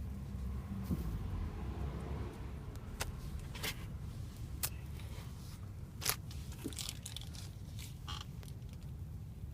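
Small ferro rod struck with a scraper: several short, sharp scrapes at irregular intervals, about a second apart, over a low steady rumble.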